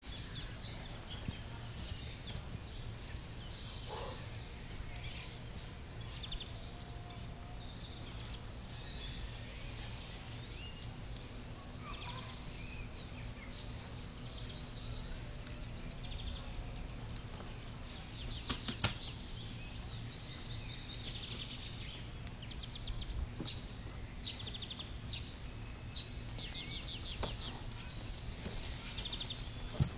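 Outdoor ambience: a steady low wind rumble on the microphone with small birds chirping and trilling on and off throughout. A single sharp click about two-thirds of the way through.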